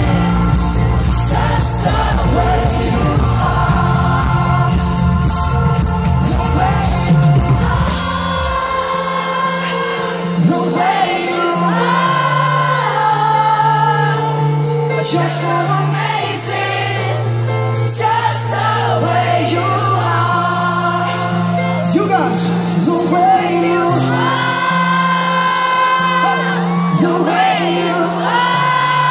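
Live pop band and lead singer heard through the stage PA from within an outdoor festival crowd. Heavy bass and drums play for the first eight seconds or so, then drop out, leaving held keyboard chords under the gliding vocal line.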